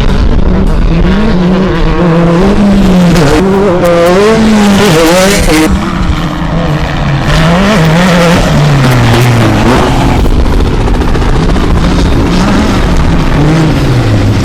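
Off-road race vehicle engine running hard. Its pitch rises and falls again and again as the throttle is worked, and it drops lower near the end.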